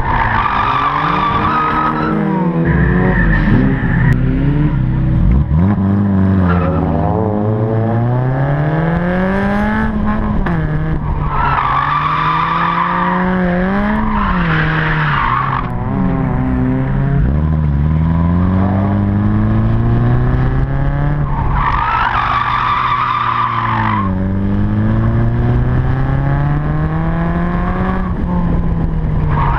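A race-prepared hatchback's engine heard from onboard, revving up and dropping back again and again through the laps, with its tyres squealing in long stretches through the corners, three times and again at the very end.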